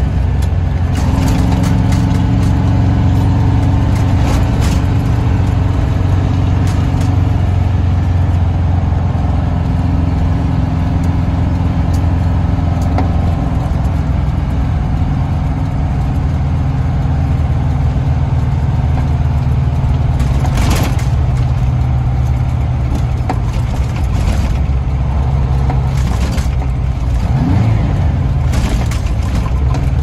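Detroit Diesel 8V92 two-stroke V8 of a Kenworth K100E cab-over truck under way, heard from inside the cab. The engine note steps up and down in pitch several times as it pulls, with a few sharp knocks or clicks in the last third.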